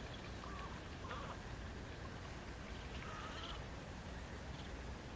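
Open-air wetland ambience: steady low wind rumble on the microphone, with a few short, faint bird calls scattered through and a thin, steady high-pitched whine.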